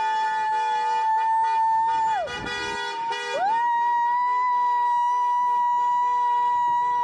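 Siren wailing in long tones: one held tone drops away about two seconds in, and the next rises about a second later and holds. A steadier, lower tone sounds underneath at times.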